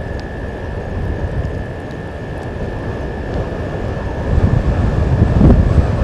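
Wind rumbling and buffeting on an outdoor microphone, gusting louder about four seconds in, over a steady thin high tone.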